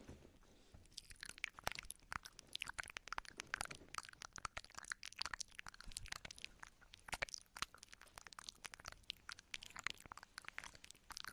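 Close-miked ASMR mouth sounds ('ear eating'): a dense, irregular run of wet clicks and smacks from lips and tongue.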